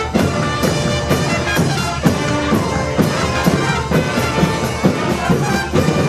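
A brass band with drums playing live: horns carrying the tune over a steady beat of about two strokes a second.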